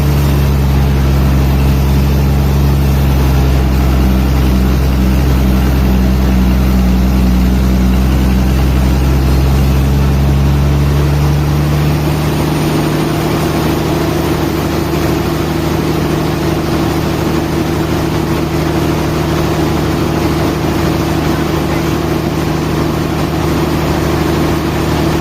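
Sawmill machinery running with a loud, steady hum of low held tones. About halfway through the lowest tones fall away and a higher steady tone takes over, as the machine's load or speed changes.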